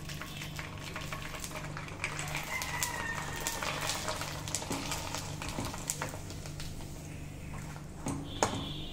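Hot oil sizzling and crackling as dried rice-flour koozh vathal fry and puff up in a wok, stirred with a perforated metal slotted spoon. A steady low hum runs underneath, and a sharp knock comes near the end.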